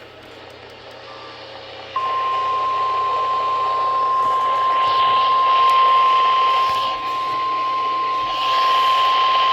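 NOAA Weather Radio 1050 Hz warning alarm tone: a single steady, loud beep that starts abruptly about two seconds in after faint static and holds unbroken over a radio hiss, the signal that a warning broadcast follows.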